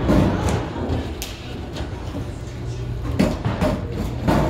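Bowling alley room noise: a steady low hum, broken by two sharp knocks about three and four seconds in.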